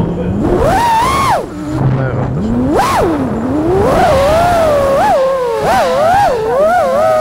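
FPV racing quadcopter's brushless motors whining, the pitch swooping up and down with the throttle. The pitch drops low about a second and a half in, climbs sharply near three seconds, then wavers with quick short rises.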